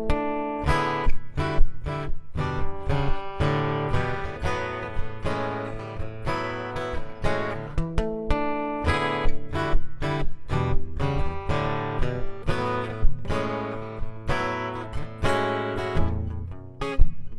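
Acoustic guitar playing the instrumental introduction to a song, with picked and strummed chords in a steady rhythm.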